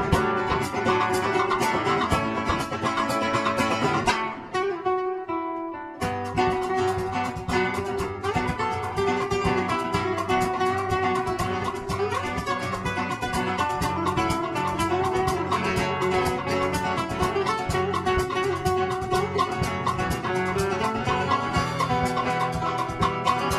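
Live instrumental music on nylon-string acoustic guitars with a drum kit: fast plucked and strummed lines over steady drum strokes. About four seconds in, a chord rings and fades for a moment, then the playing starts up again suddenly.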